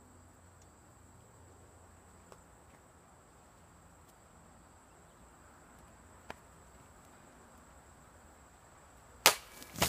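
Ritter Steel Lioncrest single-handed sword slicing through a plastic orange juice bottle on a post: one sharp crack near the end, then a second sharp knock about half a second later.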